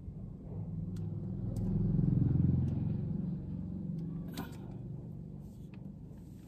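A motor vehicle's engine rumble, heard from inside the car cabin, swelling to a peak about two seconds in and then fading away as it passes. A few light clicks and taps come from a hand pressing a sticker onto the windscreen.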